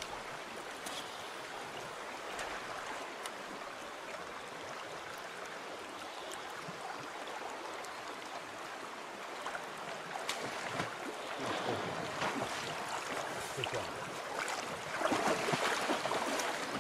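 River water flowing steadily, with a short louder splash at the surface near the end.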